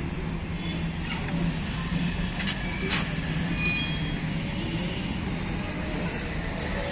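Steady low motor-vehicle hum with a few sharp clicks and a brief high chirping tone about halfway through.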